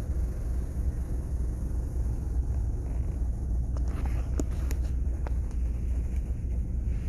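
Steady low rumble of a cruise ship's machinery and ventilation, with a few light clicks about halfway through.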